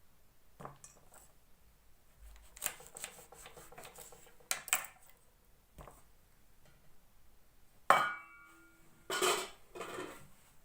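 Kitchenware being handled: a few light knocks and clinks, then one sharp clink about eight seconds in that rings briefly, followed by a short scrape.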